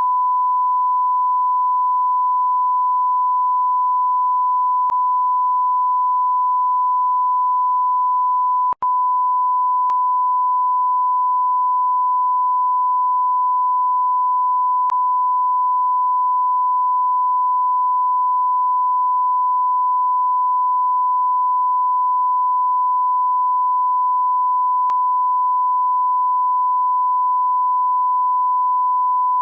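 A continuous, steady 1 kHz bleep tone, the kind used to censor words, with a split-second break about nine seconds in.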